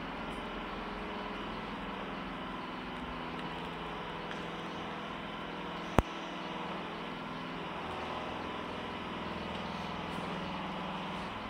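A steady mechanical hum, like an engine idling, with one sharp click about halfway through.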